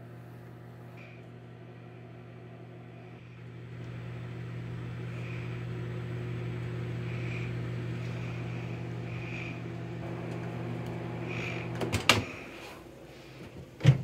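Microwave oven running with a steady low hum, which stops about twelve seconds in as its door is popped open with a sharp click; another sharp knock follows near the end.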